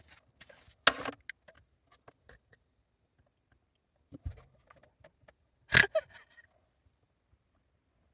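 Handling noises: a few scattered scrapes and knocks, the loudest a sharp knock a little before six seconds in.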